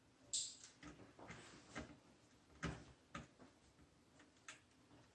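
Faint, scattered small clicks and taps of a small screwdriver working a screw on the circuit board inside a radio controller's plastic case, with a short hiss about half a second in.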